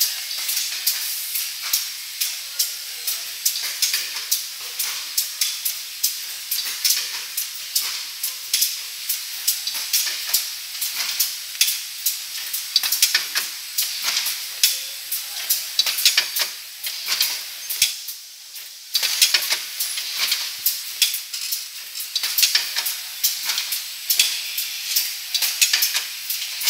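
Labeling and packing line machinery for plastic cream jars running: rapid, irregular clicking and clattering over a hiss, several clicks a second. It goes briefly quieter about two-thirds of the way through.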